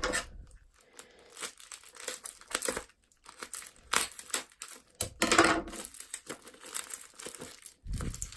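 Taped-up parcel packaging being crinkled and torn open by hand: irregular crackling rustles, loudest about four seconds in and again around five seconds.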